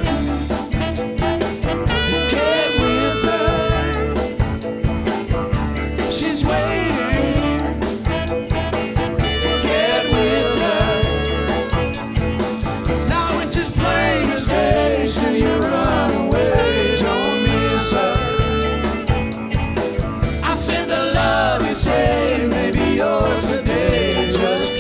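R&B band playing live: a steady drum and bass groove under horn lines and singing.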